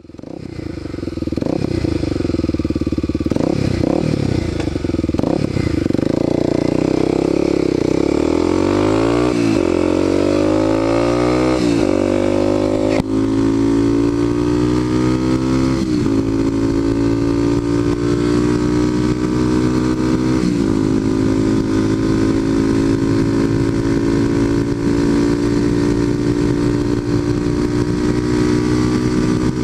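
Kawasaki KLX250SF's single-cylinder four-stroke engine through an aftermarket Muzzy exhaust, accelerating up through the gears. The engine pitch climbs and drops back at each of several upshifts, then holds steady at cruising speed for the last several seconds.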